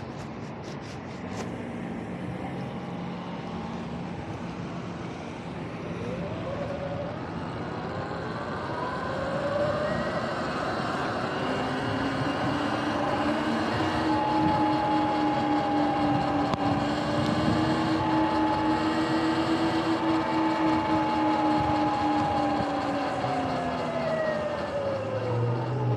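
Sur-Ron electric motorbike's motor whine rising in pitch as it speeds up, holding steady, then falling as it slows near the end, over a steady hiss of tyres and wind. A few light clicks about a second in.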